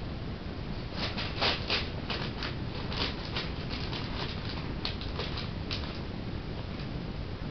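Irregular light clicking and tapping, a kitten's claws and paws on a hard tiled floor, over a steady low hum.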